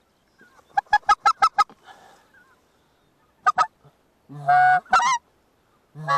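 Goose honking: a quick run of about six short clucks, a brief pause, two short notes, then a long low moan that breaks up into a higher honk.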